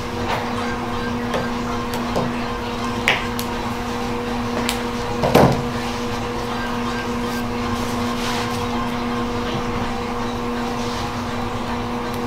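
Scissors snipping pieces off a roll of double-sided mounting tape, a few short clicks and snips, the sharpest about five seconds in, over a steady low hum.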